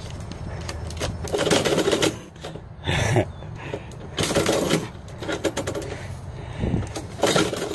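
Metal mail-slot flap in a door rattling and clacking in several bursts, with paper rustling, as envelopes are pushed in and a cat shoves them back out from inside.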